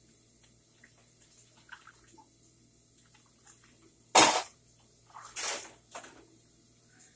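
Dishes being handled in a kitchen sink with water: three short clattering splashes, the loudest about four seconds in and two softer ones a second or two later.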